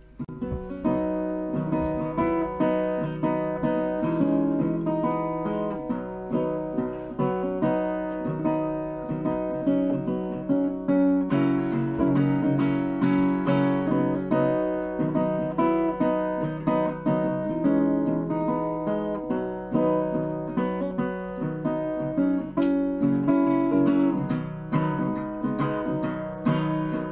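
Acoustic guitar playing a steady strummed and picked accompaniment without singing: the instrumental opening of a folk song.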